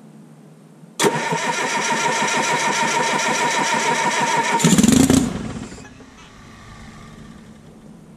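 Electric starter cranking a cold, freshly overhauled 1968 Detroit Diesel 3-53T turbocharged two-stroke three-cylinder diesel for about three and a half seconds, a steady whine over a quick even chuffing. Near the end it gives a short, louder surge that rises in pitch, then winds down and stops within about a second without running on.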